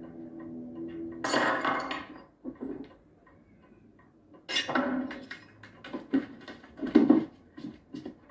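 Glass bottles and crockery on a kitchen shelf clinking and knocking together as a dog noses among them, in a loud clatter and then a string of sharp clinks. A held music chord sounds at the start.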